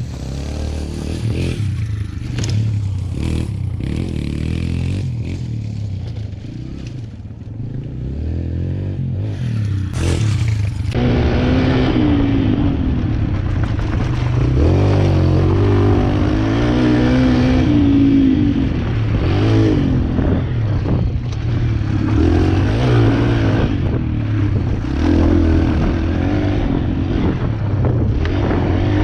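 Pit bike engine running and being revved as it is ridden over dirt jumps, its pitch rising and falling with the throttle. The engine grows louder about eleven seconds in.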